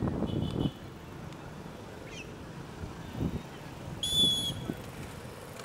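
A sports whistle blown in one loud, short blast about four seconds in, the signal that starts a children's bicycle race. A fainter short toot comes just after the start.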